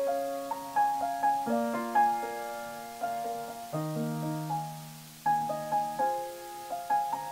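Solo piano playing without singing: chords and melody notes that ring and fade, with a held low note about four seconds in, and a short lull around five seconds in before the next phrase begins.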